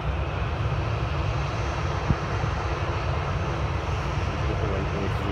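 Jet airliner's engines running on the runway: a steady, deep rumble with a hiss over it. There is a single short knock about two seconds in.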